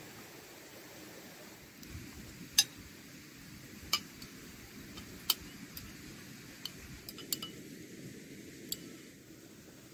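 Metal fork and spoons clinking against porcelain plates and bowls while food is served: about eight sharp, irregular clinks, the loudest a few seconds in.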